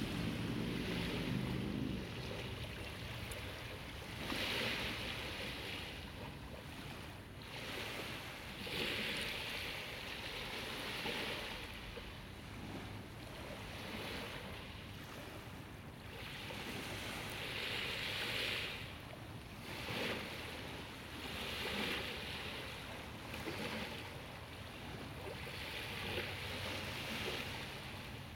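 Sea waves washing onto the shore, surging again every few seconds, with a low wind rumble on the microphone in the first couple of seconds.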